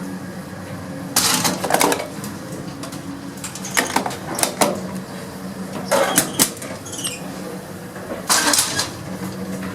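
Old gated express lift: a steady low hum of the running lift machinery, broken by several sharp metallic clattering rattles a second or two apart.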